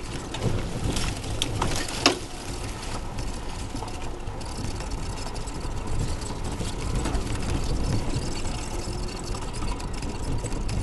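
Ride noise of a Tracker EV electric utility vehicle driving down a rough dirt trail: a steady low rumble of tyres and suspension with rattles and a few knocks. The sharpest knock comes about two seconds in.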